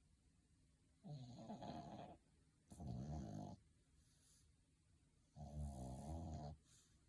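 Sleeping dog snoring: three snores of about a second each, the first two close together and the third after a pause of about two seconds.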